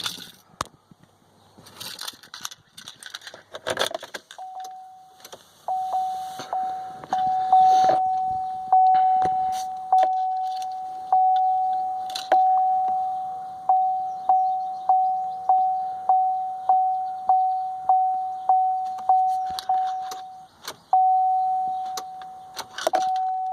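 2016 Chevy Silverado's warning chime dinging over and over, about twice a second, each ding fading before the next. A few seconds in, before the dinging starts, there is a clatter of clicks and jingling, like keys being handled.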